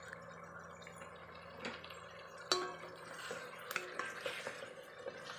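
Pork, oyster sauce and black beans sizzling faintly in oil in a metal pot, with a few sharp knocks and scrapes of a spatula against the pot, the loudest about two and a half seconds in.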